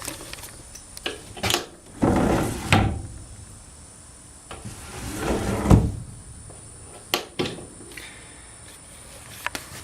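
Chicken coop pop door worked by its rope-and-pulley system: sliding, scraping runs and knocks of the door in its track, with a heavy thud a little before six seconds in as it comes down, then a few sharp clicks.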